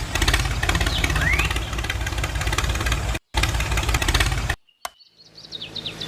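Engine running with a fast, even pulsing, cut off suddenly a little past the middle, starting again and stopping abruptly near the end; faint bird chirps follow.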